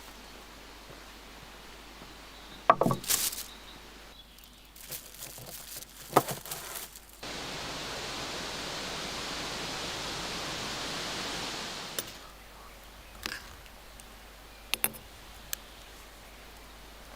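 Handling sounds: a sharp knock with a brief ring, rustling and a second knock, then a steady rushing hiss for about five seconds that starts suddenly and fades out, followed by a few light clicks.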